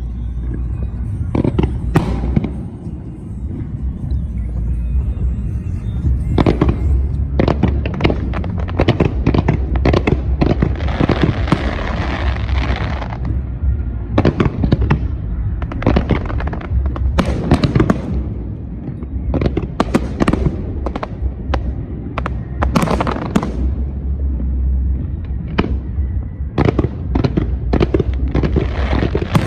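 Aerial fireworks display: a rapid series of shell bursts and bangs in clusters, with a dense stretch of crackling about a third of the way in. Music plays underneath.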